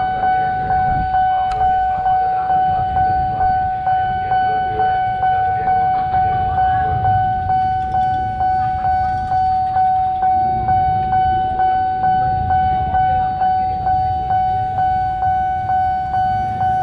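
Railway level-crossing warning bell ringing steadily, about two strikes a second over a continuous ringing tone. A low rumble of motorbike traffic waiting at the crossing runs underneath.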